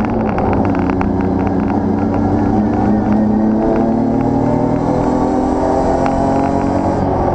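BMW race car engine pulling hard under load, heard from inside the cabin; its pitch climbs steadily, steps once about three seconds in, then climbs again and holds, with light ticks and rattles over it.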